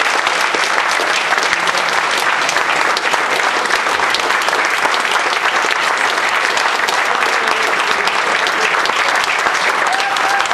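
A roomful of people applauding, the steady, dense clatter of many hands clapping without a break.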